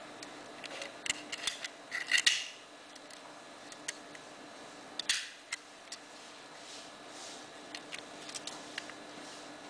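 Small clicks and scrapes of a Belomo Chaika-II camera body being handled with its back removed. The clicks come in scattered ones, loudest in a quick cluster about two seconds in, with another sharp click near five seconds.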